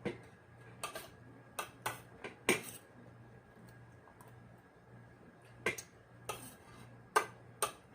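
Eating sounds: about ten scattered, sharp clicks and taps of cutlery against dishes, in two clusters near the start and near the end, over a faint steady low hum.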